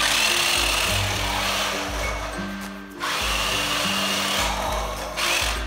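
Dickie Toys RC Ultimate Lightning McQueen toy car's electric drive motor and gears whirring at speed as it races across a tile floor. The whir starts suddenly, drops briefly about halfway through, picks up again and stops just before the end, over background music.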